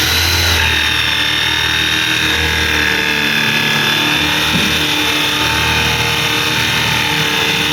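Electric washing machine motor running steadily at speed, with a steady high-pitched whine over a low hum.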